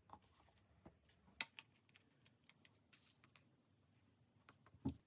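Quiet handling of paper and stickers on a desk: scattered small clicks and rustles, a sharp tap about a second and a half in, and a soft thump near the end.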